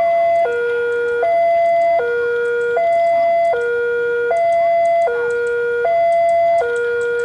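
Railway level-crossing warning alarm sounding: an electronic two-tone signal alternating evenly between a higher and a lower tone about every three-quarters of a second, warning that a train is approaching.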